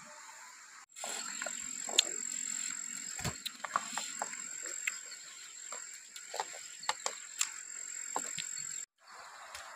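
Freshly boiled eggs being set down one by one on a large taro leaf: scattered soft taps and leaf rustles, with a steady high-pitched insect buzz behind them.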